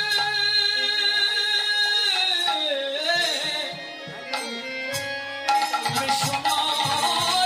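Bengali kirtan music. A steady held note lasts about two seconds and gives way to a wavering melody line. Hand-drum strokes come in from about halfway.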